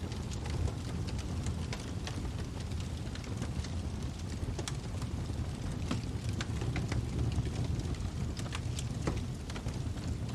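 Wood fire burning in a fireplace: a steady low rumble of the flames with sharp crackles and pops from the burning wood, several a second at irregular intervals.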